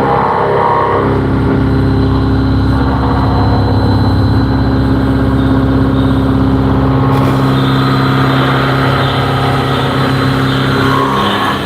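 CNC vertical machining centre running with a steady, loud mechanical hum made of several even tones. A higher hiss joins about seven seconds in.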